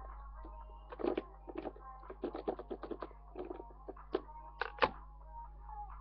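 An irregular run of light clicks and taps, about a dozen and a half, with two louder ones about a second in and near the end, over a steady electrical hum.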